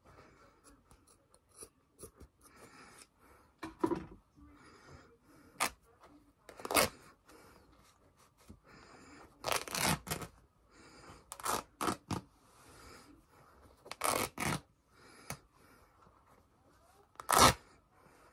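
Hoodie fabric being cut with scissors and torn: a run of short, sharp snipping and ripping sounds every second or two at irregular intervals, the loudest near the end.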